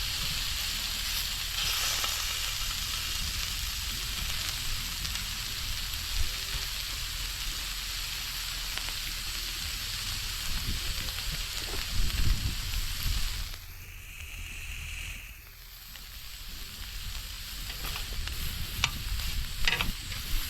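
Pork belly sizzling in a hot pan with a steady frying hiss. The sizzle dies away for a couple of seconds about two-thirds through, then builds back up.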